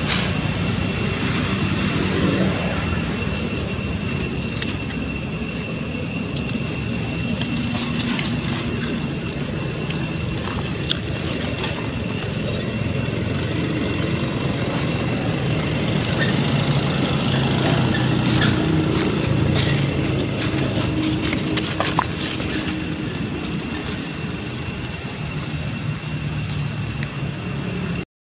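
Steady background drone with a thin, steady high whine over it, and a few faint clicks and rustles.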